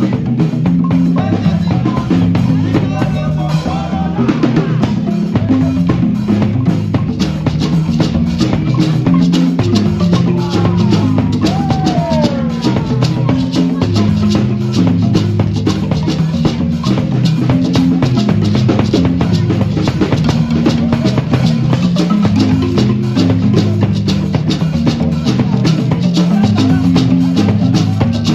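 Marimba ensemble playing a repeating pattern of low, bass-register notes, with drums and a shaker keeping a fast, even beat.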